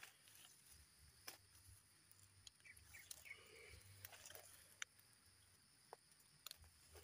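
Near silence with a few faint, scattered crackles and rustles of dry leaves and grass stems as a hand reaches into the leaf litter to pick wild mushrooms.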